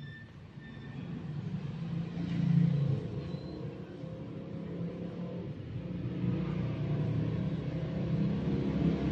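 A motor vehicle's engine rumbling, growing louder over the seconds.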